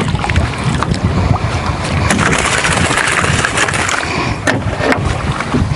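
Wind buffeting the microphone over water sloshing against a small boat, with a stretch of splashing about two seconds in as a landing net scoops a hooked fish out of the water. A few sharp clicks stand out.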